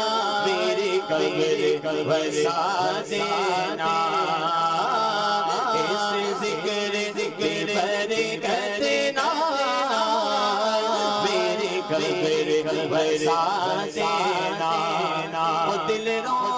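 Male voice singing a Punjabi naat into a microphone, with long, wavering melismatic notes and no pauses.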